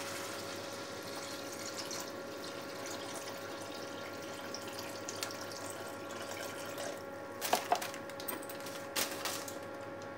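Beef broth poured steadily from a plastic jug into a wok of fried spices, a continuous splashing pour over a faint steady hum. Near the end a few sharp knocks against the pan.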